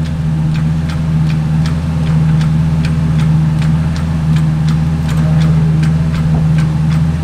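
A V10 engine running steadily in the background, with an even ticking about two to three times a second over its hum.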